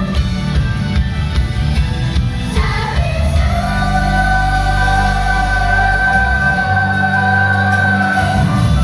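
Female idol group singing a pop song together over loud backing music. After changing notes, the voices hold one long note from about three and a half seconds in until just before the end.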